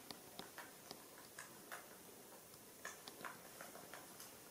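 Near silence with faint, irregular little clicks and smacks of a baby macaque chewing banana.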